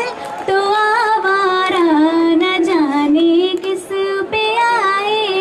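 A single voice singing a melody in an Indian style, its notes bending and sliding with many ornaments.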